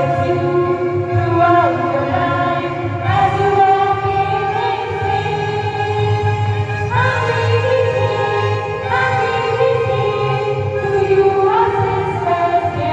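Music: a choir singing long held notes over a steady low accompaniment.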